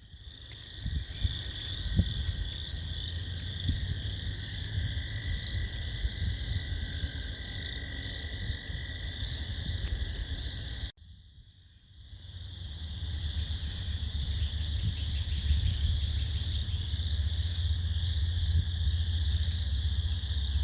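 Dense chorus of many frogs calling at once, a continuous trilling din over a low rumble. It breaks off about eleven seconds in and then picks up again.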